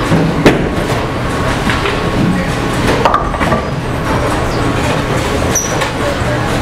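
Bowling alley din: bowling balls rolling down the lanes with a steady rumble, broken by sharp knocks about half a second in and again about three seconds in, as balls hit pins and other balls.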